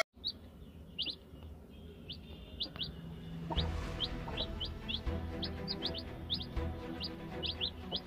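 Aseel chicks peeping: short, high chirps that slide downward, two or three a second, with a low rumble from about three and a half seconds in.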